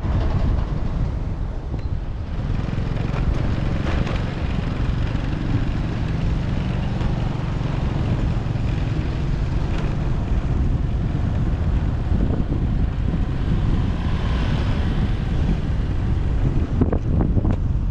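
Motorbike riding through city traffic: the engine running steadily under heavy wind buffeting on the microphone.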